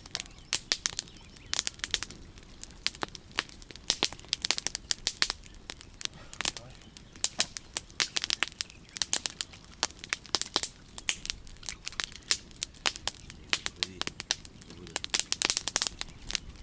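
Campfire crackling: a steady, irregular run of sharp pops and snaps from the burning wood.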